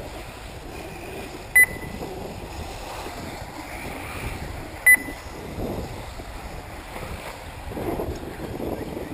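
Wind buffeting the microphone over the sound of 1/8-scale electric RC buggies running on the track, broken by two short high beeps about three seconds apart, the first about a second and a half in.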